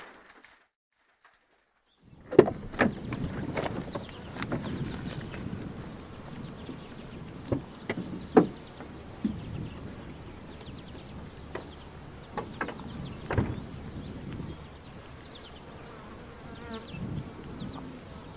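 After about two seconds of near silence, a cricket chirping steadily in short high pulses about twice a second, with scattered knocks and clicks over a quiet outdoor background.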